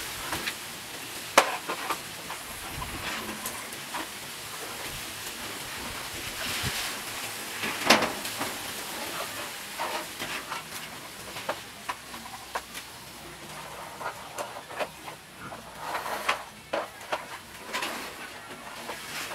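A knife cutting into a raw bitter gourd held in the hand: irregular crisp cuts and scrapes, with two sharper clicks, one about a second in and one near the middle.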